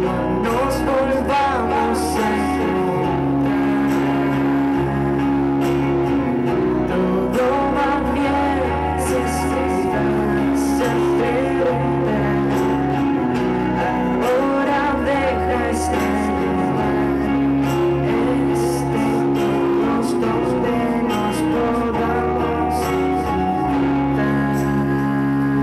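A woman singing live into a microphone while strumming chords on an acoustic guitar.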